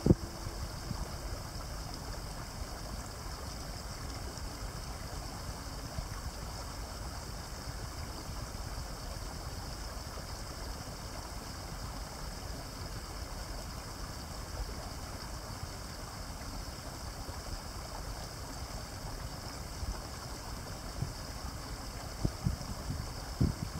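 Steady rushing of a mountain stream, an even unbroken flow, with a couple of soft bumps near the end.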